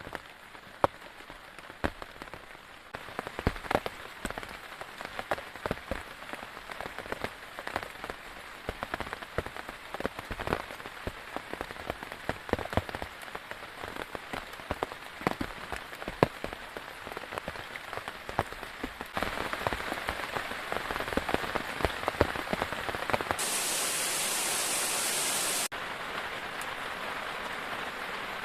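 Rain falling on a surface, with many separate drops heard as distinct clicks over a steady hiss. About two-thirds in the rain grows heavier and denser, and near the end there is a sudden brighter, hissier stretch.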